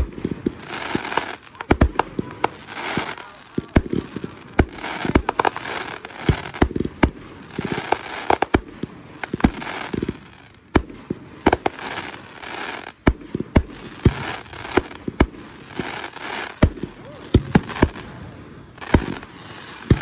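Fireworks display: aerial shells launching and bursting in quick succession, a long run of sharp bangs at irregular intervals, often one or two a second, with hissing between the bangs.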